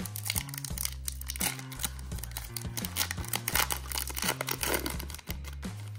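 Foil-lined plastic wrapper of a Topps Chrome trading card pack being torn open and crinkled in the hands, crackling most densely in the middle, over background music with a steady bass line.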